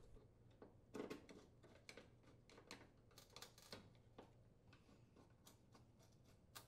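Faint clicks and scrapes of a Phillips screwdriver turning screws into a range's sheet-metal bracket: scattered small ticks, most of them between about one and four seconds in.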